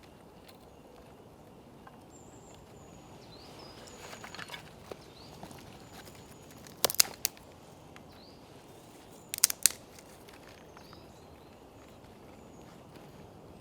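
Woodland ambience with faint bird chirps, a brief rustle, and two short clusters of sharp snaps or knocks, one near the middle and another a couple of seconds later.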